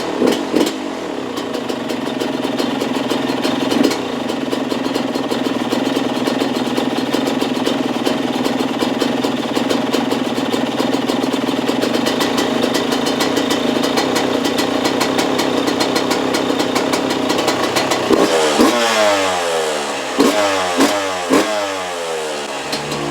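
Yamaha YZ125 two-stroke single-cylinder dirt bike engine running at a steady idle, then revved in several quick throttle blips near the end, each rising and falling. The engine is running after a throttle adjustment.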